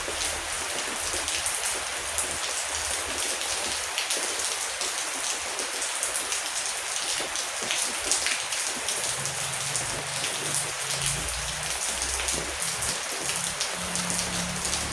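Heavy rain falling steadily, a dense hiss of drops pattering on a surface, with a low rumble underneath in the second half.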